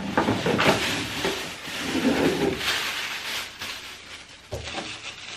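Thin plastic shopping bag rustling and crinkling as items are taken out of it and the bag is lifted and shaken, with a single knock about four and a half seconds in.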